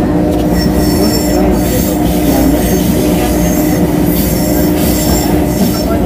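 CPTM Série 2000 electric multiple unit's traction sound: loud, steady running noise with a low hum, and high-pitched whining tones that come and go.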